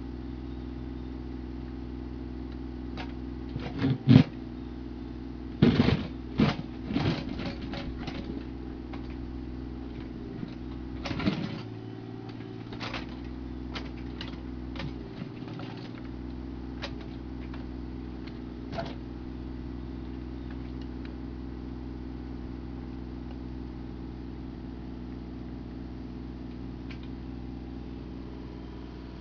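Bobcat E32 mini excavator's diesel engine running steadily while its bucket digs the trench, with sharp knocks and scrapes of the bucket against stones and soil, loudest about four and six to seven seconds in.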